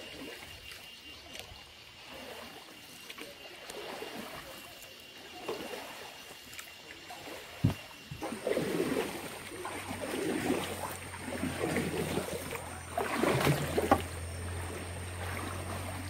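Paddle strokes splashing and swishing in river water beside a round woven bowl boat (coracle). The splashing is faint at first and grows louder and more frequent in the second half. There is one sharp knock a little before the middle.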